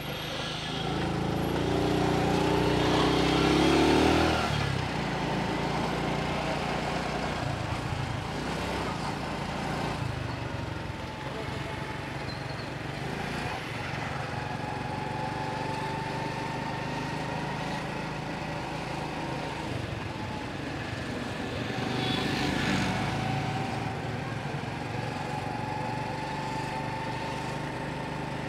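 Motorcycle engine running steadily at low road speed, heard from the rider's seat, with a thin whine that shifts slowly in pitch. It gets louder for a few seconds near the start and again about twenty-two seconds in.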